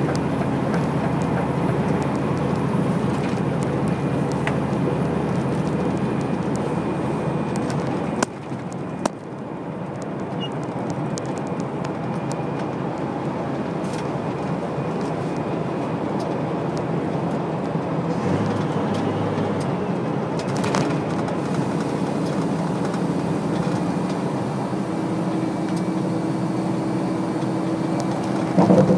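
Steady engine and tyre noise heard from inside a vehicle driving on a motorway bridge. Two sharp clicks come about eight and nine seconds in. Near the end there is a short loud thump as the wheels cross a road expansion joint.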